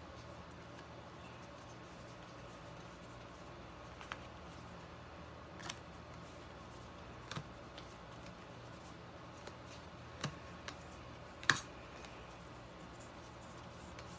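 Trading cards being handled and sorted: a few soft, scattered clicks and light rustles over a faint steady hum.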